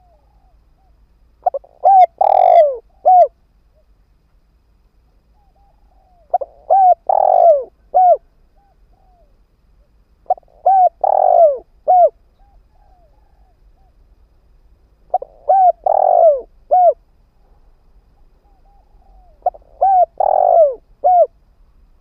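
Spotted dove (cu gáy) decoy bird cooing: five phrases about every four to five seconds, each a quick run of three or four arched coos ending with a separate final note.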